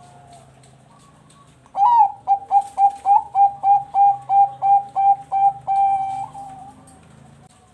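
Zebra dove (Bangkok-line perkutut) singing one song: a rising opening note, then a quick run of short staccato coos, about four a second, ending in a longer drawn-out coo that fades away.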